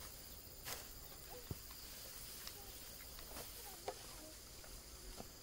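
Faint outdoor ambience: scattered short chirping calls, a few light knocks, and a steady high-pitched hum.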